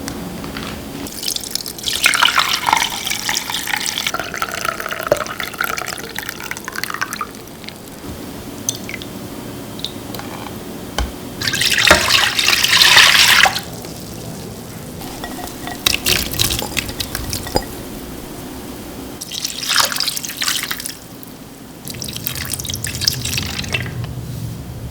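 Water running from a kitchen tap into a sink in several bursts, turned on and off, with the loudest run about halfway through.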